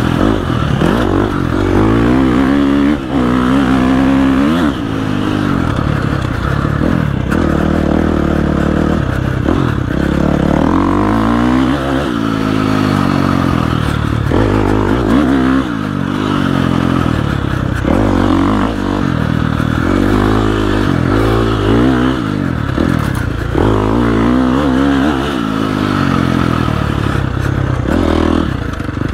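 Dirt bike engine being ridden hard on a trail, its pitch rising and falling every couple of seconds as the rider gets on and off the throttle through tight rutted turns.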